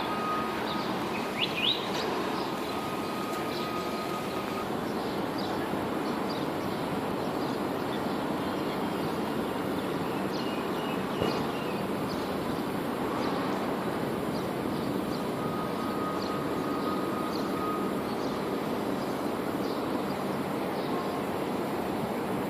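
Steady outdoor city background noise heard on a rainy walk beside a river: an even wash of sound with no single source standing out. A few short, high bird chirps come about a second and a half in, and a faint steady tone comes and goes.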